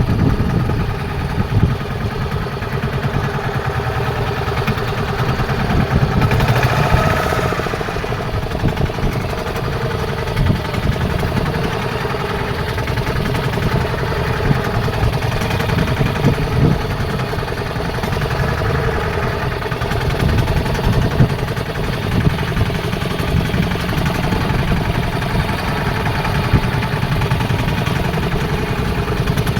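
Fishing boat's engine running steadily at a low, even speed. A brief hissing rush is heard about seven seconds in.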